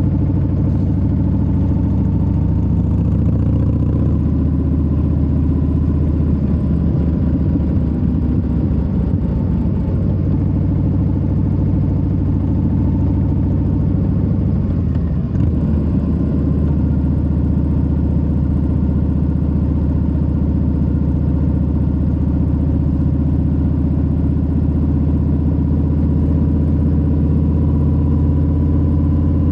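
Harley-Davidson Low Rider S's Milwaukee-Eight 117 V-twin running at a steady engine speed, with a small change in the engine note about halfway through.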